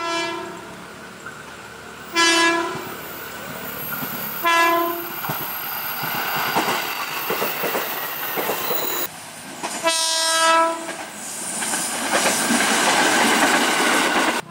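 Horn of a KRL commuter electric train giving short blasts of one steady pitched note, four times: near the start and about two, four and a half and ten seconds in. Between and after the blasts, the rumble and wheel clatter of a passing train grows louder.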